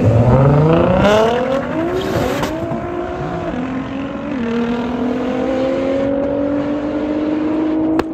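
Car engine accelerating hard through the gears: the revs climb steeply in the first second or so, step down at a couple of shifts, then rise slowly and steadily in a higher gear. A single sharp click comes just before the end.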